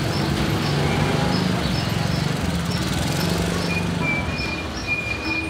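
Street traffic: a truck and motor scooters running, their engines a steady low hum, with short high chirps repeating irregularly. A thin, steady high tone comes and goes in the last couple of seconds.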